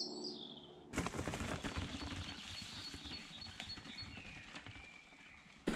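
Birds chirping briefly, then from about a second in the rattling, clicking noise of a mountain bike riding over a forest trail.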